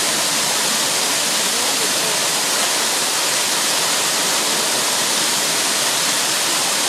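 Steady, loud rush of a waterfall pouring down.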